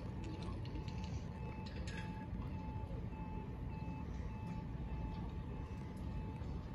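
Nagano Electric Railway electric train standing at the platform with a steady hum over low rumble. A faint short beep repeats about twice a second through the middle.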